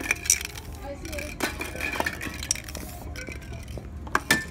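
Background music with a scatter of sharp metallic clinks from spray paint cans and tools being handled, two of the loudest close together near the end.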